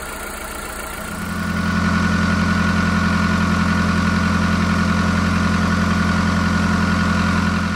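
VW Polo 6N2's 1.4 16V four-cylinder petrol engine idling steadily. About a second in, the sound jumps louder to the same engine idling from a cold start, with a diesel-like rattle.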